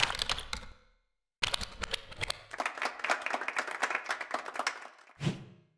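Applause dying away, then after a brief gap a rapid run of small typewriter-like clicks for about three and a half seconds, ending in one low thump near the end. These are the sound effects of an animated logo end card whose lettering scrambles.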